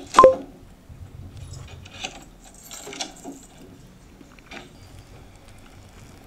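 A sharp ringing clink just after the start, then a few soft clicks and rustles from handling a plastic dessert tub and a metal spoon.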